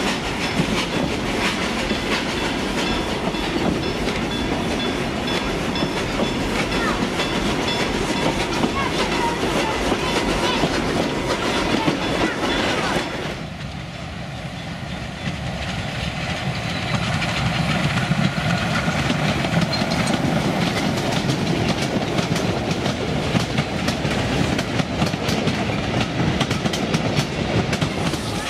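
Narrow-gauge steam train running: wheels clattering over the rail joints and the wooden carriage rattling. About halfway the sound drops suddenly and then builds again as the small steam locomotive and its train approach along the line.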